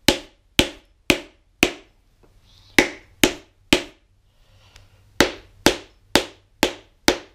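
Sharp taps on a piston crown, most likely from the butt of a hammer handle, driving the piston through a ring compressor into a Ford 429 big-block cylinder bore. There are about a dozen taps, roughly two a second, in three runs with short pauses. The piston is not going in because the ring compressor is clamped too tight.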